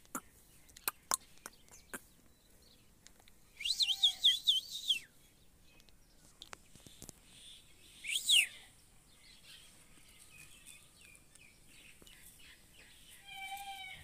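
Indian ringneck parakeet calling: a loud burst of rapid chattering chirps about four seconds in, a single sharp call about eight seconds in, and a shorter call near the end. A few sharp clicks come in the first two seconds.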